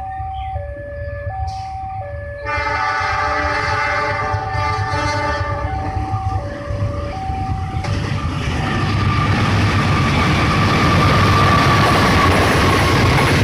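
A level-crossing warning alarm chimes in two alternating tones while a train's horn sounds for about three seconds. From about eight seconds in, the passing train's rumble and wheel noise builds and drowns out the alarm.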